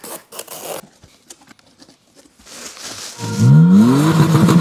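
Packing tape on a cardboard box being scraped and slit with a small blade for about a second. From about three seconds in comes the loudest sound: an added effect that rises in pitch and then holds, with a steady high tone over it.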